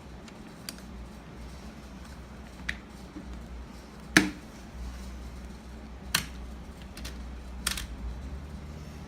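Small metal and plastic lock parts being handled and fitted: a handful of scattered sharp clicks and knocks, the loudest about four seconds in, over a low steady hum.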